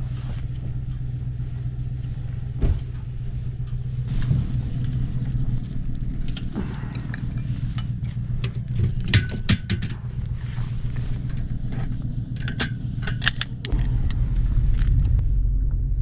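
An engine running steadily under way, with scattered light metallic clinks and jingles. The low rumble grows louder near the end.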